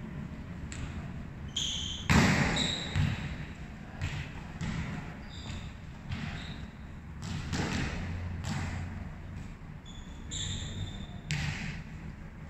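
A volleyball being struck and bouncing on a hard indoor court floor, a dull thud roughly once a second, the loudest about two seconds in, echoing in a large hall. Short high-pitched squeaks come in between.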